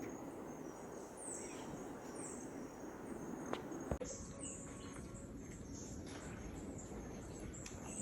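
Outdoor ambience with birds calling: short, high, falling chirps repeating every second or so over a steady background hiss. Two sharp clicks come just before the background changes abruptly about four seconds in.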